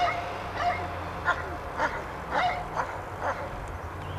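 A dog barking repeatedly, about two barks a second, over a low steady hum of a car engine.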